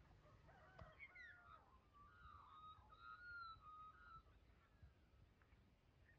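Faint bird calls: a run of short whistled notes that slide up and down, starting about a second in and stopping a little after four seconds.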